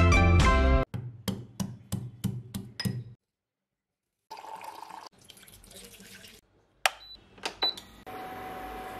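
Background music stops about a second in, followed by a run of sharp clicks. After a short gap come kitchen sounds: liquid heating in a steel saucepan on an induction cooktop, a quiet steady hiss with a faint steady tone, and a few light metal clinks of a spoon against the pan and the tea tin.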